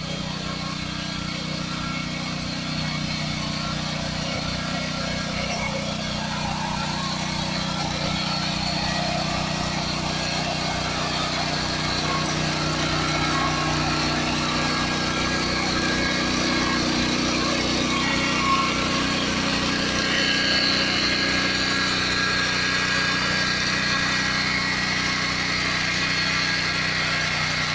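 Power weeder's Honda GX200 single-cylinder petrol engine running steadily under load as its rotary tines churn the soil, with one brief knock about two-thirds of the way in.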